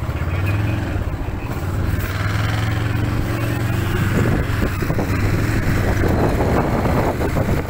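Motorcycle engine running steadily while riding along, with a rushing, buffeting noise like wind on the microphone building up from about four seconds in.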